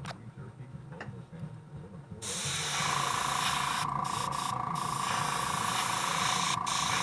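Gravity-feed airbrush spraying opaque black base-coat paint: a steady hiss of air starts about two seconds in and carries on, with a few brief breaks, over a steady high tone.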